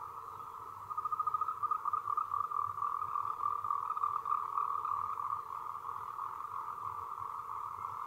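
An animal's rapid, even trill held at one pitch, growing louder about a second in and then holding steady.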